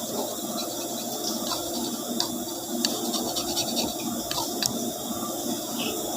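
Cassette air conditioner's drain pump running and drawing water, a steady hum and gurgling with scattered crackling clicks.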